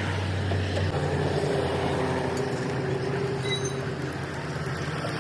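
A motor running steadily: a low hum with a few steady tones that shift in pitch about a second in.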